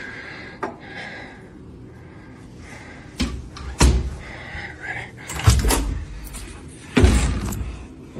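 Heavy bangs on a closed interior panel door: single thumps a little after three seconds and just before four seconds in, a quick cluster of blows about five and a half seconds in, and the loudest bang at about seven seconds, each with a deep boom.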